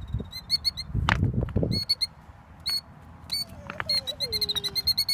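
A bird calling in alarm at its nest of eggs: runs of short, shrill, high notes repeated several times a second. A few low thumps come about a second in.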